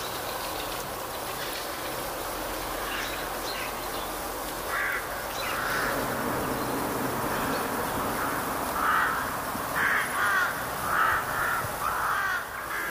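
Crows cawing, a few scattered calls and then a run of caws in quick succession in the second half.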